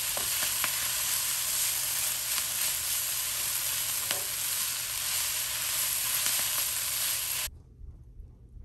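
Kale with onion and tomato frying in olive oil in a frying pan, sizzling steadily as a wooden spoon stirs it, with a few light scrapes of the spoon. The sizzle cuts off suddenly near the end.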